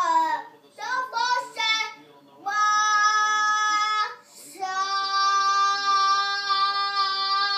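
Young girl singing: a few short sung syllables, then a long held note, a brief breath, and another long note held steady.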